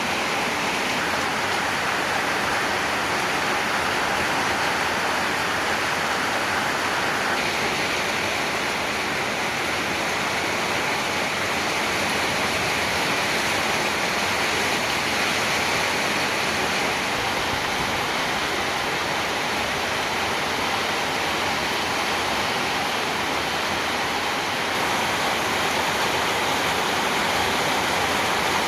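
Heavy rain from a thunderstorm pouring down, a steady dense hiss.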